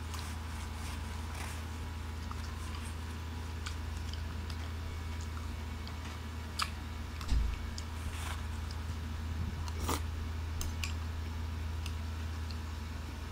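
Close-up eating sounds: wet chewing of fruit salad and a metal spoon scraping and clicking against a ceramic bowl, over a steady low hum. Several sharper clicks and one dull bump come near the middle.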